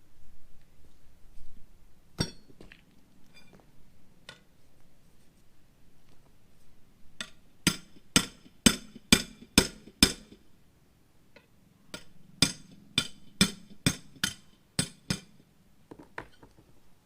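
Hand tools clinking on a go-kart wheel and its bolts. One sharp metal clink comes about two seconds in, then two runs of sharp clinks at about two a second, with a pause between the runs.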